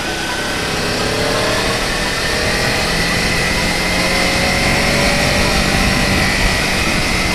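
Motorcycle engine running under way over a steady rushing noise; its pitch climbs over the first couple of seconds as it speeds up, then holds nearly steady.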